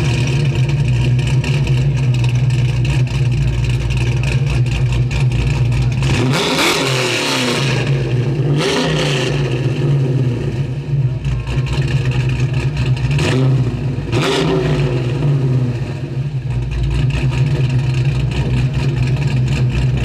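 A car engine running steadily, with other vehicles passing close by several times, their pitch falling as they go past.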